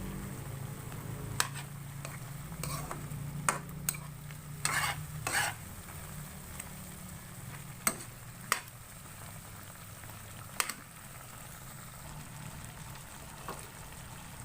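Chicken curry being stirred in a cooking pan: a spoon knocks and scrapes against the pan about eight times, over a steady low hum.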